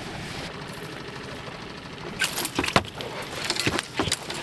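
A boat motor runs steadily underneath. From about two seconds in come several sharp knocks and clatters as a northern pike is set down on the boat's carpeted deck.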